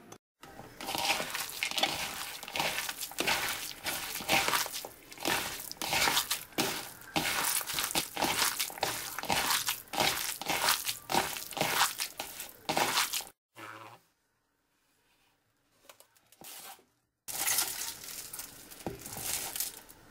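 A bare hand squeezing and kneading raw pork filling with shredded ginger, onion and bamboo shoot in a bowl: a fast run of wet squeezing strokes that stops for a few seconds near the middle, then resumes.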